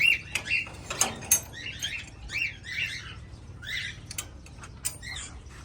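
Many farm-kept birds chirping over one another in short, repeated calls, with a few sharp clicks or knocks among them.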